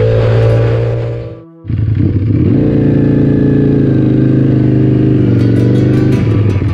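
Rock music over a Ducati Panigale V4's engine running during a ride. The sound fades away about a second in and cuts back in abruptly, and a regular ticking beat joins near the end.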